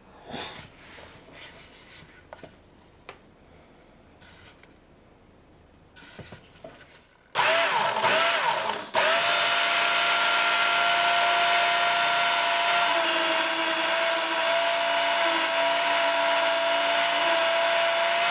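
A few light handling clicks, then a Work Sharp belt sharpener switched on about seven seconds in: its small electric motor spins up with a rising whine and then runs steadily with the abrasive belt whirring, sharpening a steel ice-auger blade.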